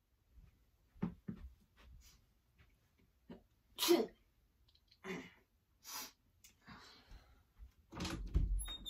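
A person sneezes loudly about four seconds in, with a few shorter noisy bursts after it. Two short knocks come about a second in, and a longer low knocking and handling sound near the end as the doorknob is grabbed.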